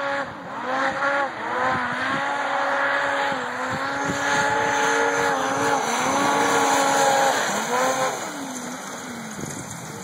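2011 Polaris Rush 800 snowmobile's two-stroke 800 twin engine held at high revs while skimming across open water, its pitch rising and dipping with throttle changes over the hiss of water spray. Near the end the engine falls in pitch and fades.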